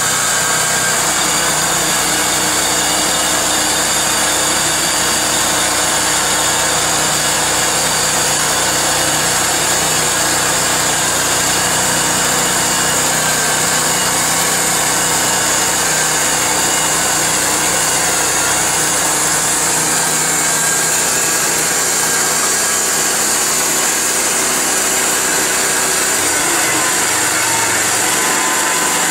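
Gas engine of a portable bandsaw sawmill running steadily, driving a 1½-inch band blade. A low hum drops out about 26 seconds in.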